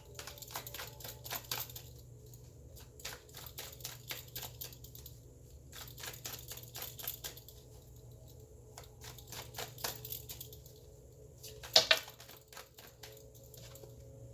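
Tarot cards being shuffled and handled: clusters of quick papery clicks and rustles, with one sharper snap near the end.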